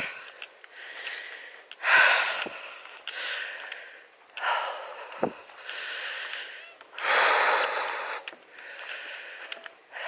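A man's heavy breathing as he climbs a steep grassy hill on foot, a rush of breath every second or two.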